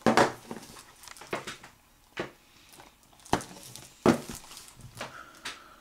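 Handling noise from a plastic Blu-ray case being turned over in the hands: several sharp clicks and knocks, roughly one a second, with light rubbing in between.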